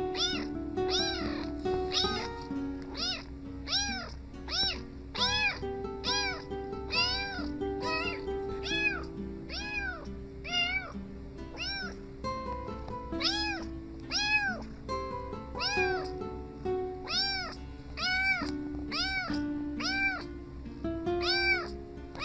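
Tabby kitten meowing over and over, about two short meows a second, each rising and then falling in pitch, with a pause of a couple of seconds near the middle. Background music with held low notes plays underneath.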